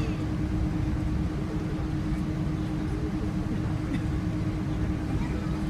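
Cabin noise of a Boeing 777-300 airliner taxiing: a steady low rumble with a constant hum.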